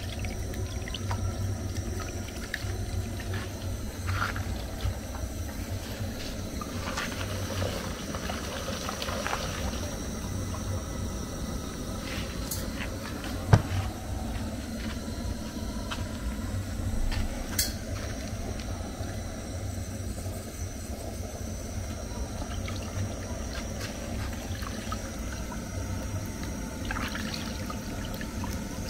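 Hands washing raw meat in a plastic bowl of water: water sloshing, splashing and dripping as pieces are rubbed and lifted. A single sharp knock about halfway through.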